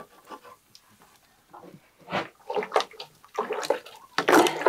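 Water sloshing and splashing in a metal cooking pot as ground toasted barley is stirred in with a spoon, opening with a sharp knock and in irregular bursts that grow louder near the end.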